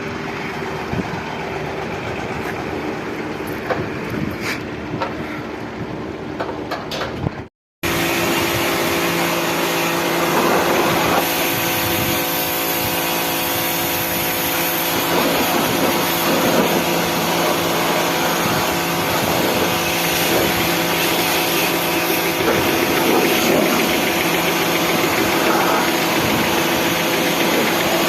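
A motor running steadily with a constant hum. It drops out abruptly for a moment about seven and a half seconds in, then returns louder with a hiss over the hum.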